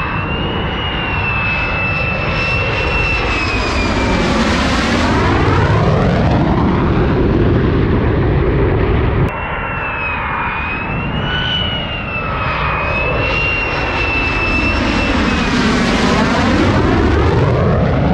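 Fighter jet engine running with a high whine as the jet passes low on final approach, the roar's tone shifting as it goes by. About halfway through the sound cuts off suddenly, and a second low pass follows in the same way.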